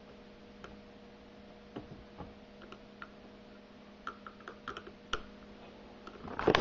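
Faint, scattered small metal clicks and taps from a screwdriver tightening a terminal bolt on a quad's battery, over a steady low hum, with louder handling noise near the end.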